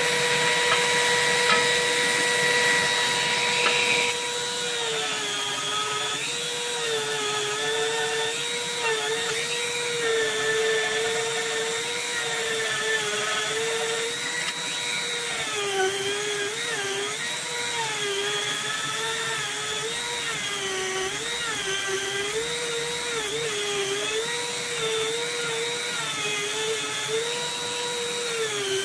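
Dremel rotary tool with a small sanding drum whining at high speed while carving a pattern into G10 knife-handle scales. The whine holds a level pitch for the first few seconds, then from about five seconds in it sags and wavers over and over as the drum is pressed into the scale.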